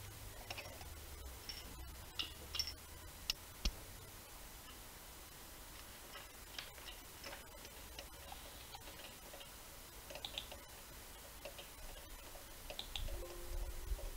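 Light metallic clicks and taps from a ratchet wrench and spark-plug socket being handled during a spark plug change. The clicks are loudest and closest together about two to four seconds in, then come sparser and fainter.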